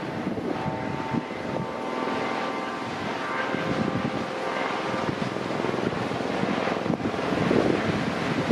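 Lava fountain at an erupting volcanic vent: a steady rushing noise of gas and molten spatter with dense crackling, growing louder toward the end. A faint high whine sits over it for the first few seconds.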